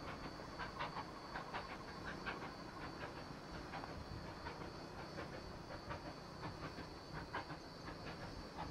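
GWR 0-6-0 saddle tank steam locomotive No. 813 working away into the distance, its exhaust beats faint and uneven, about two to three a second, over wind noise on the microphone.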